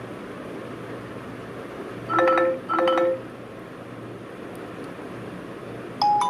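Two short electronic phone tones about two seconds in, then near the end a marimba-like ringtone starts playing from the Redmi Note 10 Pro's speaker: the sign that its sound fault is cured after the CPU reballing.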